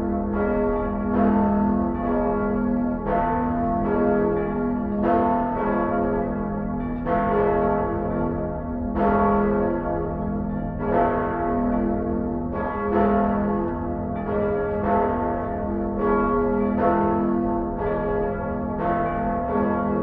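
Church bells ringing, struck over and over at about two strokes a second, each stroke ringing on into the next, with a low steady hum beneath.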